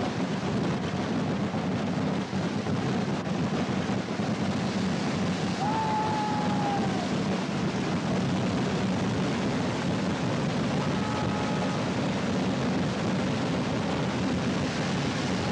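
Massed barrage of voladores (festival rockets) launching and bursting without pause, the blasts merging into one steady, low din.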